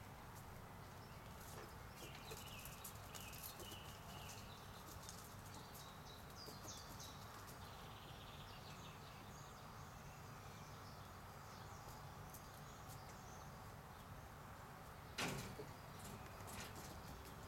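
Quiet outdoor garden background with faint, short bird chirps and scattered light clicks. A single louder knock or rustle comes about fifteen seconds in.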